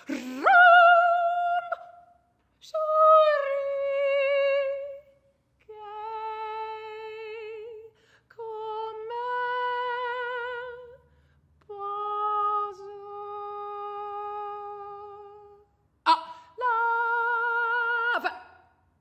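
Unaccompanied female voice singing long held notes with vibrato, in six separate phrases with short breaks between them; the first note swoops up from low into a held tone.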